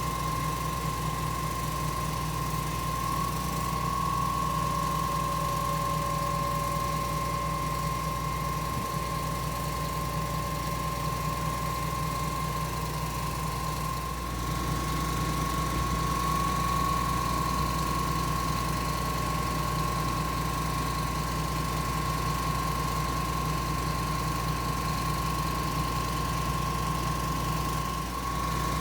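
Putzmeister 47-metre truck-mounted concrete pump running: a steady engine drone under a constant high whine.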